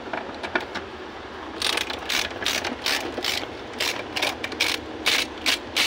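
Hand ratchet wrench being worked back and forth on the rear door's hinge bolts, its pawl clicking in short rhythmic bursts of about two to three strokes a second that start about a second and a half in, as the door is taken off.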